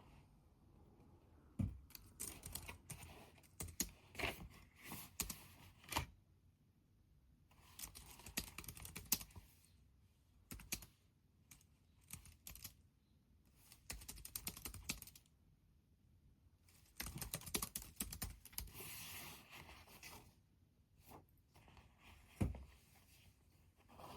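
Typing on a computer keyboard: quiet runs of key clicks, several short bursts with pauses between them.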